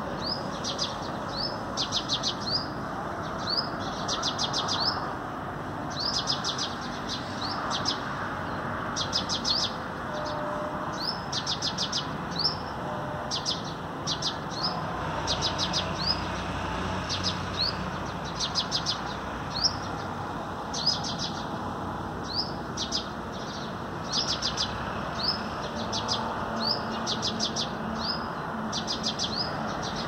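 A male sunbird singing: short fast trills, each followed by a quick rising note, repeated every second or two. House sparrows are chirping in the background.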